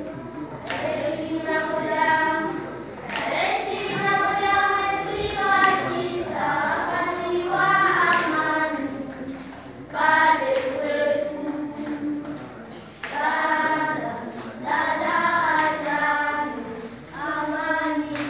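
A group of children singing together in chorus, in phrases with short breaks between them.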